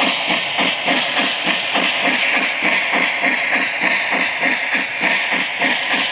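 Lionel Disney Berkshire O gauge locomotive's RailSounds steam sound running: even chuffing, about four chuffs a second, over a constant steam hiss.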